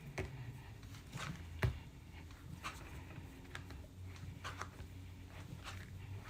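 Clay being wedged by hand on a canvas-covered board: soft thumps and taps, roughly one a second, as the clay is pushed and rocked against the canvas. A faint steady low hum runs underneath.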